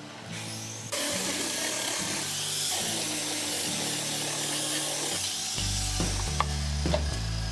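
A tool working wood: a steady rasping noise starts abruptly about a second in and runs on, with a few sharp clicks near the end, over background music.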